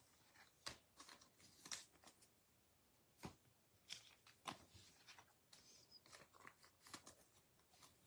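Faint, scattered taps and rustles of baseball cards being flipped through and set down on a tabletop, about a dozen soft clicks.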